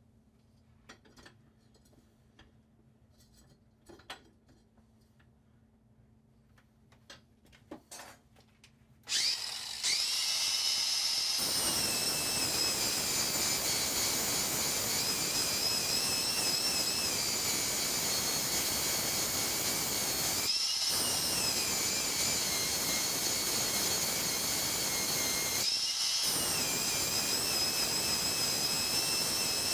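A few faint knocks, then a Ryobi angle grinder starts about nine seconds in and grinds the flat face of an aluminium finned heatsink with an abrasive disc. It is a steady motor whine over grinding noise. Twice the grinding noise drops out for a moment and the whine rises in pitch.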